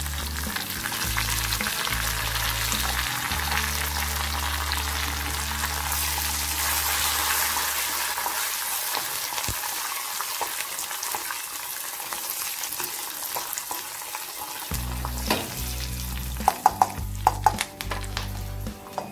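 Coconut oil sizzling in a pan as a tempering of coconut pieces, shallots, dried red chillies and fresh curry leaves fries and is stirred with a spoon. Near the end, a few sharp clicks of the spoon knocking against the pan.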